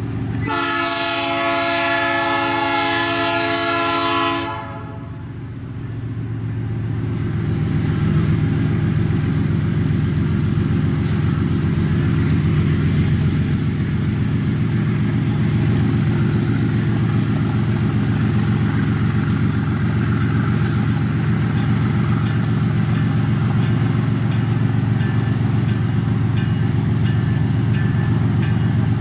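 Diesel locomotive's horn sounding one long chord-like blast of about four seconds, then the locomotive's diesel engine running as it approaches, growing louder over a few seconds and holding steady as it hauls a container train.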